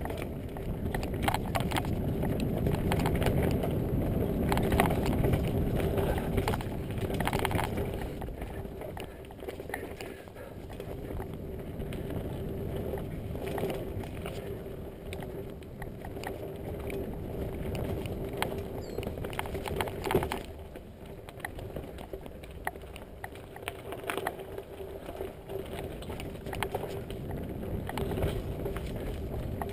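Mountain bike riding fast down a dirt singletrack: knobbly tyres rumbling over the ground, with frequent rattles and knocks as the bike hits roots and bumps, and a steady hum. The rumble is loudest over the first few seconds.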